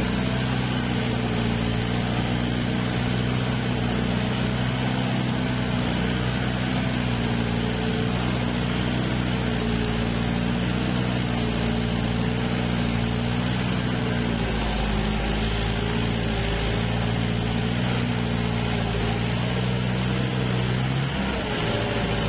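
Farm tractor's diesel engine running steadily under load while its front wheel churns through muddy floodwater, with splashing water. The engine note sags a little about two-thirds of the way through and changes again near the end.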